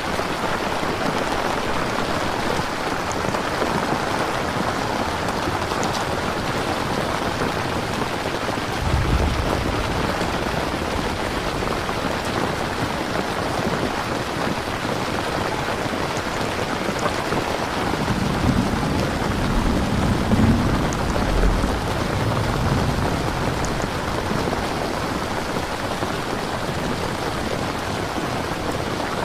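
Steady heavy rain falling, with low rumbles of thunder about a third of the way in and again for a few seconds past the middle.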